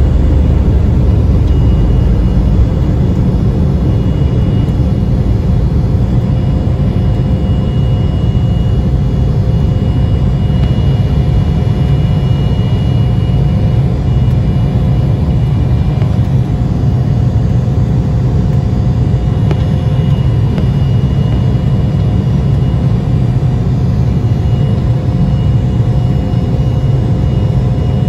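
Embraer E175's General Electric CF34 turbofan engines at takeoff power, heard from inside the cabin beside the wing: a steady, loud roar with a fan whine in several steady tones. The deepest rumble eases slightly a few seconds in, then the sound holds steady through the climb.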